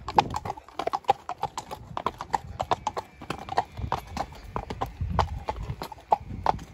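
Horse's hooves clip-clopping on a tarmac road as it is ridden, a steady run of sharp knocks several times a second, with the hooves of a second horse ahead mixed in.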